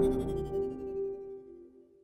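The tail of the channel's logo-sting music ringing out: a few held tones fade away over about a second and a half.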